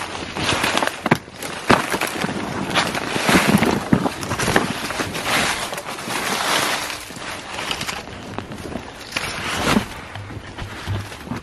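Rustling and crunching of a person moving through grass and brush on foot, with frequent sharp snaps and clicks.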